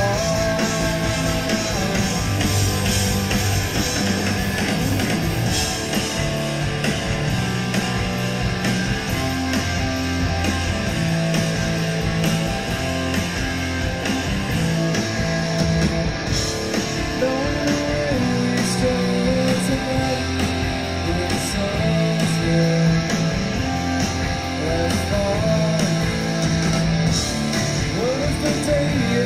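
Rock band playing live, with electric guitar and bass holding long, slowly changing notes, in an audience recording of the show.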